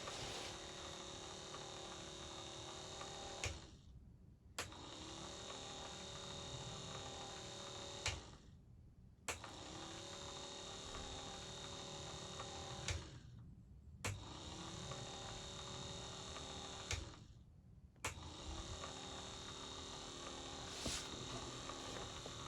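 Lucas FW2 wiper motor from a Land Rover Series 2/2a running with a steady electric hum. It is switched off and on four times, running about three and a half seconds each time with a second's pause, and each restart opens with a click.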